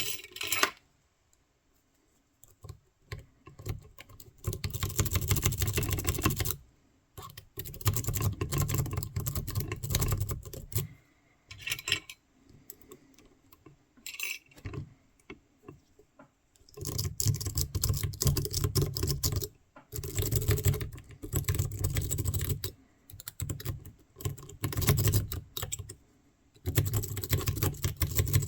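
Bursts of rapid metallic clicking and rattling from a pick and tension tool worked in a small wafer lock, each burst lasting one to three seconds with short pauses between.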